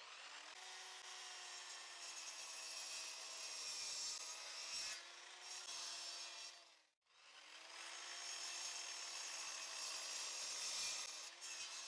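Miter saw run twice to trim the edges of a glued-up wood panel: each time a faint, steady motor whine with the hiss of the blade cutting the wood, the first run about six seconds long and the second about four, with a short break between them.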